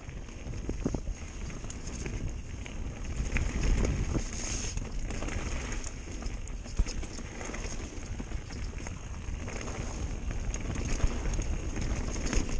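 Mountain bike riding fast down a dirt singletrack: a steady low rumble from the tyres on the trail, with frequent irregular knocks and rattles from the bike over bumps.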